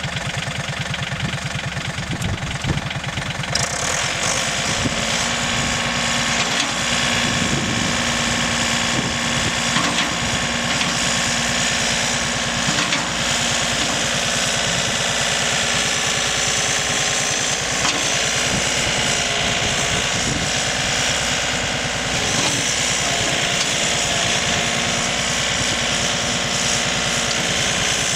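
John Deere 3520 compact tractor's diesel engine running steadily while the tractor, stuck in sand, works its front loader to get free; the engine gets a little louder and brighter about three and a half seconds in.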